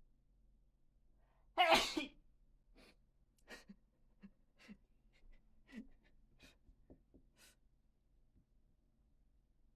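A person sneezing once, loud and sudden, about a second and a half in, followed by several faint short sounds.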